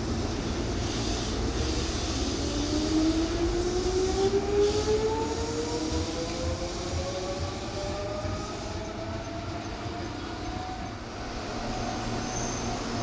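Meitetsu electric train moving under power, with the whine of its motors rising steadily in pitch for several seconds as it accelerates. The rumble of the cars and wheels runs under it.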